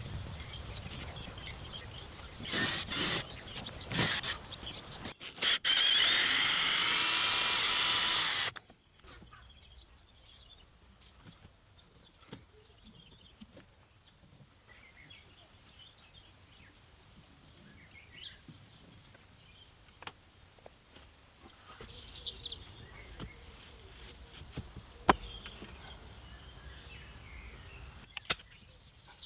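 Repair work on a greenhouse: a few sharp knocks, then a loud noisy burst of about three seconds that cuts off suddenly, followed by a quiet stretch with faint bird chirps and an occasional knock.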